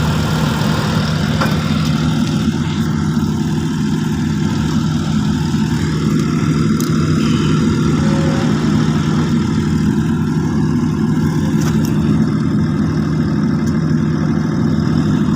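Panasonic YD400AT3 welding power source switched on, its cooling fan running with a steady low hum. The running fan is the sign that the machine is getting power again with its replaced control transformer.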